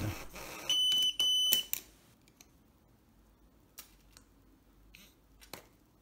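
Pandora Multibrand 605 tester giving two short high beeps in quick succession, the sign that it has picked up and stored the signal from the car key remote being pressed. A few faint clicks follow.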